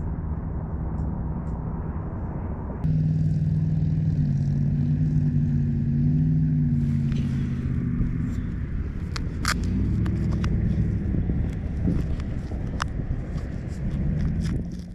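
Outdoor ambience with a steady low rumble of road traffic. About three seconds in it gets louder and a wavering engine hum runs for a few seconds, and a few sharp clicks and taps come in the second half.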